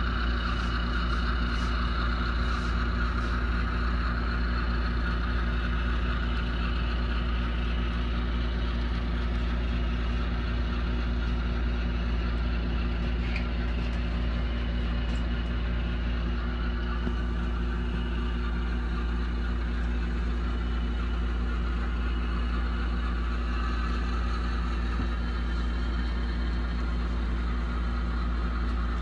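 HO scale Milwaukee Road diesel locomotive model pulling a train of loaded ore cars, with a steady engine drone and the running noise of the train.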